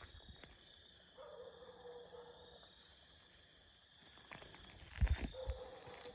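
Steady high insect drone, with an unidentified drawn-out low call heard twice, about a second in and again near the end. A few footsteps thud about five seconds in.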